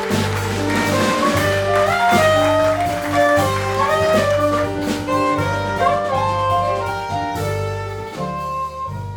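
Live jazz quartet playing: a saxophone carries a flowing melodic line over piano, bass and drum kit, and the playing dies away toward the end.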